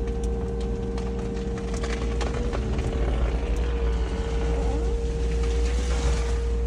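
Deere 35G compact excavator running under load with a steady whine over a low rumble while it pushes a felled Douglas fir over. Scattered wood cracks and snaps start about a second and a half in, and a rush of crashing branches builds near the end as the tree goes down.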